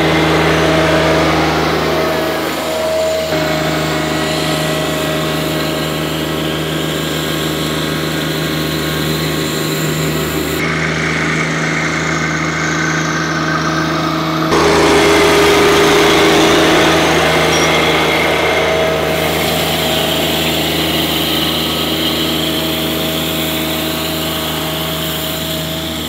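John Deere 1025R compact tractor's three-cylinder diesel engine running at a steady speed while the tractor drives across the lawn. The steady hum changes abruptly a few times, about 3, 11 and 15 seconds in.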